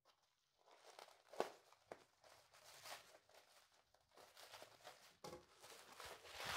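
Scissors snipping through the plastic wrap around a packed ceramic pot, with soft crinkling and rustling of the plastic and a sharp snip about a second and a half in; near the end the wrap rustles louder as it is pulled open by hand.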